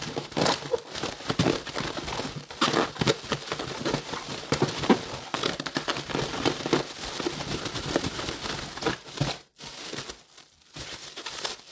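Air-filled plastic bag holding sweet potato slices and flour being shaken hard: fast crinkling of the plastic with many quick knocks as the slices tumble inside, dying down to lighter rustling about nine seconds in.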